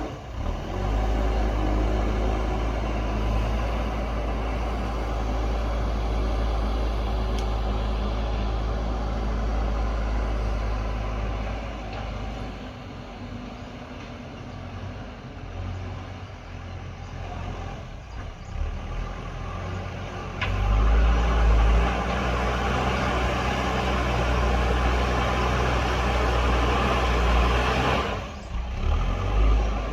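JCB backhoe loader's diesel engine running hard while pushing soil, a deep steady drone. The load eases for several seconds midway, then the engine works hard again, with a short dip near the end.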